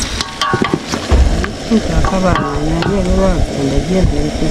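Chicken and onions frying in a pan, stirred with a spoon: clicks and scraping in the first second, then a steady sizzle. From about a second and a half in, a low wavering voice-like sound runs underneath.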